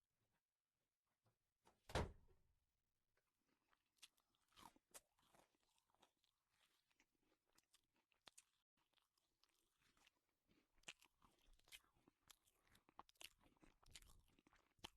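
A single heavy thump about two seconds in, then a long run of faint, irregular crunching and clicking sounds.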